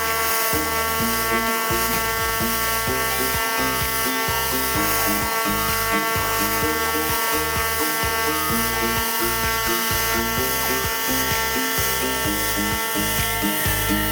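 Pulsed MIG welding arc on thin sheet metal, a steady high buzz with a hiss that stops near the end. Background music with a bass line plays underneath.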